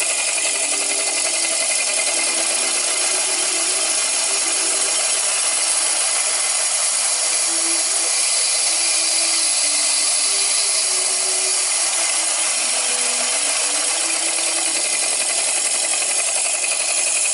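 Twin-cylinder model steam engine running, with a loud, steady hiss.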